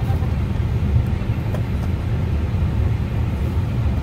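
Steady low rumble of an Airbus A321neo flight deck's background noise, with a faint light tap about a second in as a smartphone is set down on the plastic tray table.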